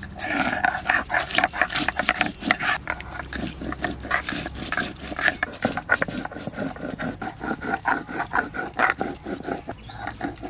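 Dried red chillies being ground on a sil-batta, a flat stone slab worked with a hand-held grinding stone: stone rubbing and rocking on stone in quick, regular strokes.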